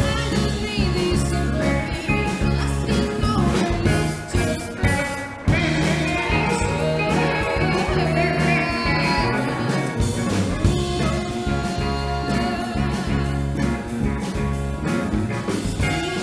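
Live band music with electric guitars, bass guitar and drum kit keeping a steady groove, and a woman singing.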